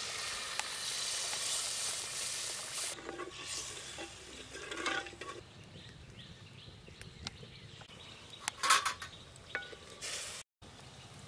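Water poured into a clay pot of hot oil and frying spice paste, hissing and sizzling for about three seconds. Then a quieter stretch with a few scrapes and clinks of utensils, the loudest near the end.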